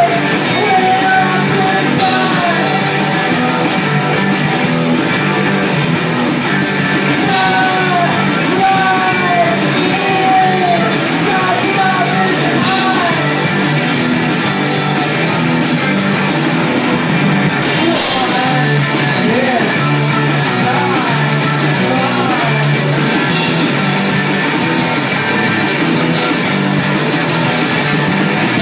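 Indie rock band playing live: electric guitars and drum kit with a sung vocal line, the singing mostly in the first half or so.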